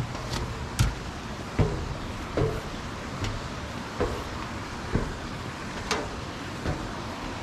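Footsteps going down an outdoor stairway at an even walking pace, about one step every 0.8 seconds, each a dull thump, a few with a crisp click, over a steady outdoor hiss.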